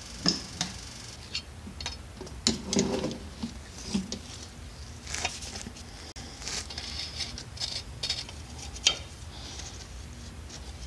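Irregular metal clicks, taps and clatter of hand work with tools: a hand oil pump being handled, then a fill plug being threaded in and snugged with a wrench.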